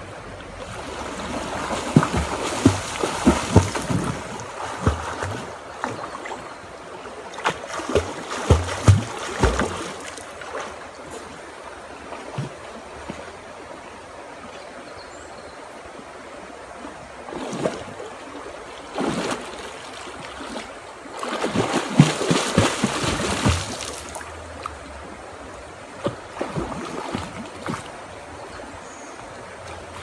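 Water splashing as people wade and dunk in a shallow stream, in three spells of clattering splashes: from about a second in, around eight to ten seconds, and again around twenty-two seconds. Under the splashes runs the steady wash of the flowing stream.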